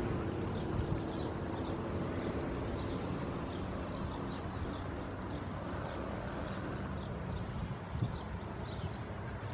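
A Boeing 737-800's CFM56-7B turbofan engines on short final approach, heard as a steady low rumble and hiss. Short high chirps repeat over it.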